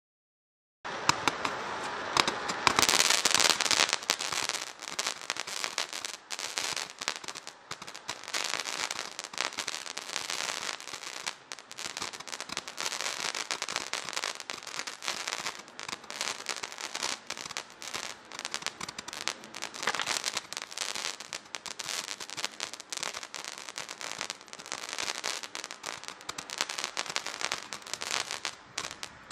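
Large 220-shot roman candles firing, a dense and rapid stream of popping shots with crackle. It starts about a second in and is loudest in the first few seconds.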